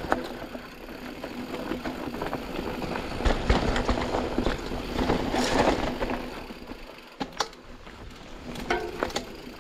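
Canyon Spectral AL 6.0 full-suspension mountain bike rolling down a dirt trail: steady tyre noise over the ground, with sharp clicks and rattles from the bike, several of them near the end.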